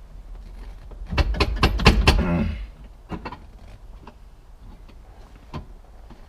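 Aluminum instrument panel carrier clunking and rattling against the car's dash mounts as it is pushed and wiggled onto its bolts: a burst of quick knocks and rattles in the first half, then a few single clicks.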